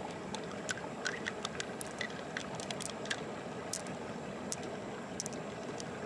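Fingers digging pearls out of freshwater mussel flesh: small, sharp clicks of pearls tapping against each other and the shell, with wet squishing, many times over a steady rush of background noise.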